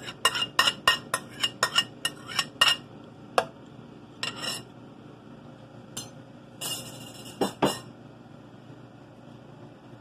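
A utensil clinking and scraping against a mixing bowl as the last of the beaten egg is knocked out into the pan: quick taps, about four a second, for the first two to three seconds. Then a few scattered clinks and short scrapes follow, the loudest two about three quarters of the way through.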